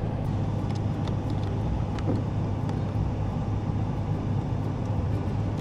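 Steady low rumble and hiss, like a vehicle's background noise, with a few faint clicks.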